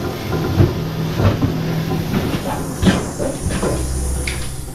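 Pneumatic tire changers at work mounting wide drag tires: a steady hiss of compressed air with sharp metal clanks, and a low hum near the end.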